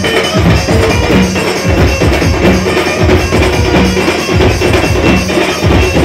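Loud dance music with a steady, driving beat and a low note repeating about every second and a half.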